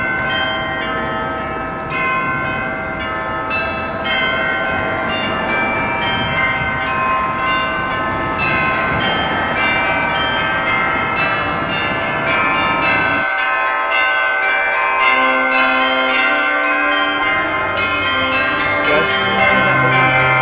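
Church bells pealing: several bells struck in quick succession, their tones overlapping and ringing on. A low rumble sits underneath and drops away about two-thirds of the way through.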